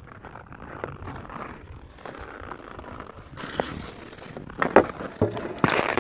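Hockey skates scraping and carving on lake ice, then sharp clacks of a hockey stick on the puck as the skater closes in, the loudest about three-quarters of the way through, ending in a louder burst of scraping ice.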